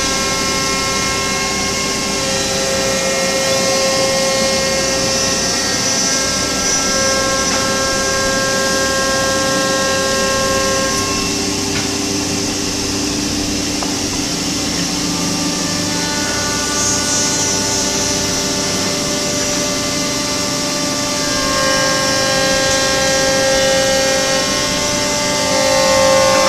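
5-axis CNC wood carving machine running: steady whining tones from the spindle and axis drives, shifting in pitch every few seconds as the head moves, over a noisy cutting haze.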